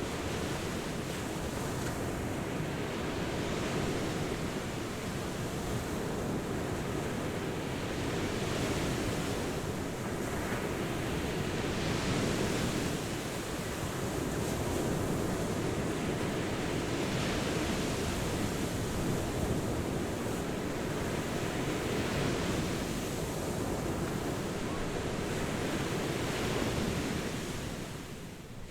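Ocean surf washing onto a beach, a continuous rush of water that swells and eases every few seconds as waves break.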